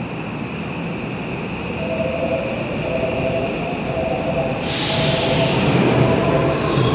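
Tokyo Metro 9000 series electric train pulling out and picking up speed, its running noise growing louder. About four and a half seconds in, a high hiss sets in along with a whine that falls in pitch.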